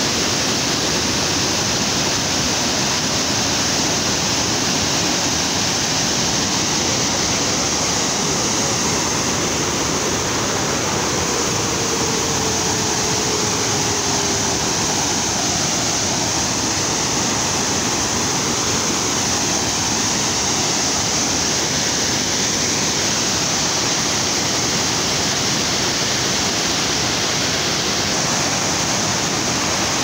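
Overflow water from a full reservoir spilling over a dam's spillway and crashing down a rocky cascade: a loud, steady rush of falling water.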